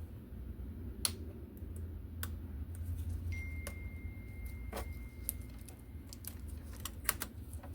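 Scattered light clicks and taps of plastic and metal parts being handled while an Xbox One X console is taken apart, over a steady low hum. A thin, faint high tone sounds for about three seconds midway.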